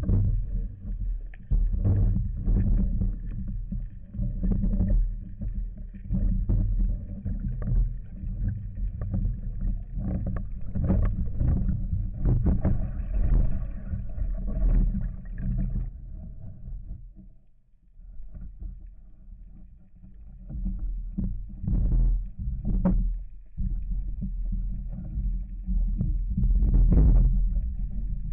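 Muffled underwater noise heard through a waterproof camera housing: a low rumble of water movement with many short knocks, dropping away briefly about two-thirds of the way through.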